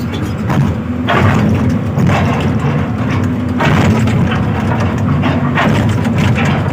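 Hyundai 215 excavator's diesel engine running at high throttle, with repeated short surges of hydraulic noise as the arm and bucket are worked.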